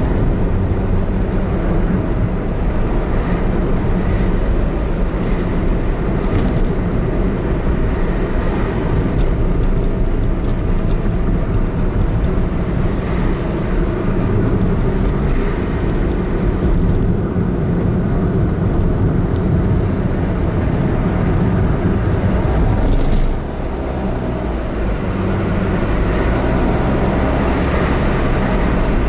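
A car driving, heard from inside the cabin: steady engine and tyre-on-road rumble. It drops a little about 23 seconds in and builds again a few seconds later.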